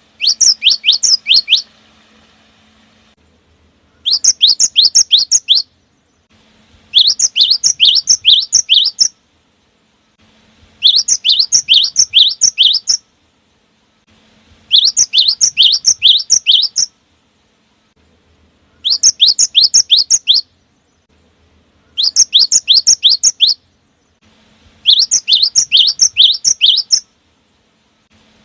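Gelatik batu (cinereous tit) singing: short phrases of quick, high, falling whistled notes, about six to a phrase, repeated every three to four seconds with brief silent gaps between.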